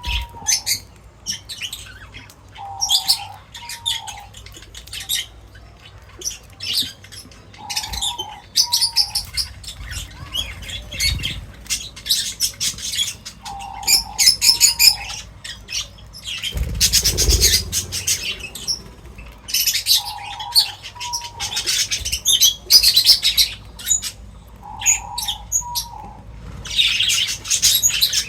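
Many small birds chirping and twittering in quick, overlapping bursts, with a lower two-note call that repeats about every six seconds. There is a louder flurry of wing flapping about seventeen seconds in.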